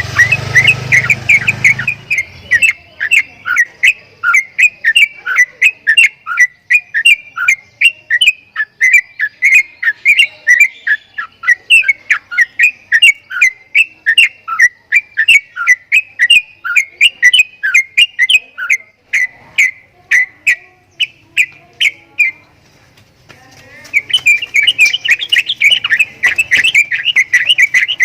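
Javan myna calling in a long, rapid series of short, sharp whistled notes, about three a second, breaking off briefly near the end and then resuming more densely. A low rumble runs under the first two seconds.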